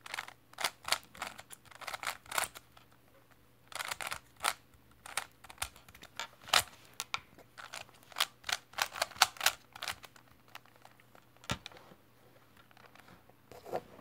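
A 3x3 speed cube being turned quickly by hand: runs of sharp plastic clicks and clacks as the layers snap round, broken by short pauses between move sequences.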